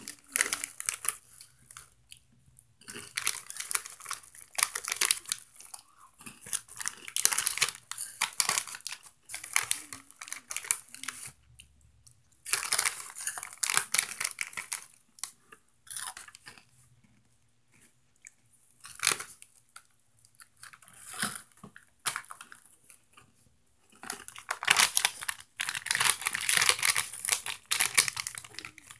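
A plastic Cheetos snack bag crinkling as it is handled, in stretches of several seconds with quiet gaps, mixed with crunchy chewing of the chips.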